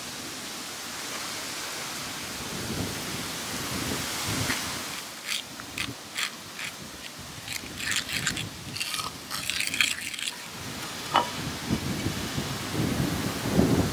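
A metal fork scraping and clicking against an earthenware dish while it stirs a soft cheese mixture, over a steady rushing background noise. Near the end, duller knocks as the clay dishes are handled on the wooden slat table.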